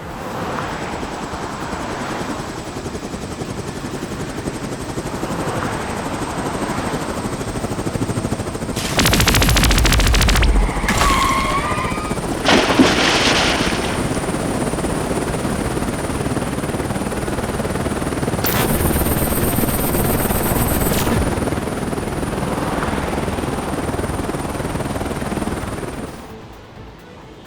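Cartoon helicopter sound effect, a steady rotor chop, over background music. About nine seconds in comes a loud, rapid burst like machine-gun fire, followed shortly by a short whistle and a sharp hit.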